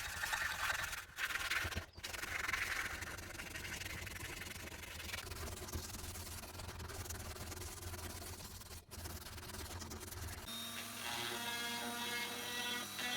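Coarse hand sanding on a wooden hammer handle: steady scratchy rubbing with a few short breaks. About ten and a half seconds in it gives way abruptly to the steady whine of a small motorised tool.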